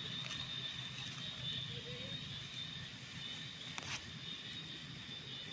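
Outdoor background of a steady, high-pitched insect drone over a low rumble, with a single sharp click about four seconds in.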